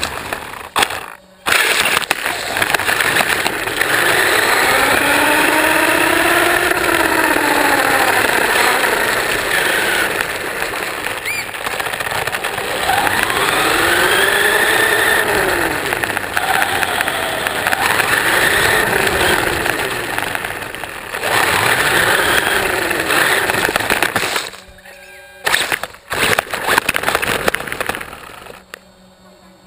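1/16-scale RC car's electric motor and geartrain whining as it drives, the pitch rising and falling again and again with the throttle, over a rough rush of tyres on asphalt. It cuts out briefly a few times, and goes quiet near the end as the car slows.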